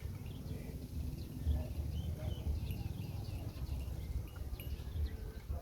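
Small birds chirping in short, scattered high chirps over a steady low rumble.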